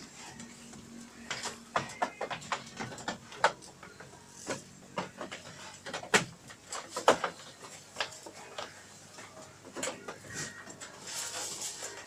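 Goats feeding on leafy branches on a bamboo-slat floor: irregular sharp clicks and knocks, with leaves rustling near the end.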